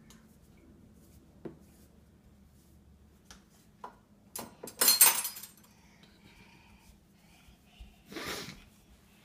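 Dishes and cutlery knocking and clinking as a dishwasher is unloaded: a few light knocks, a loud clatter about five seconds in, and a short rattle near the end.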